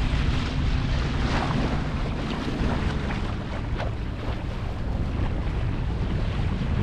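Wind buffeting the microphone on a sailboat under sail: a steady low rumble with the hiss of water moving past the hull.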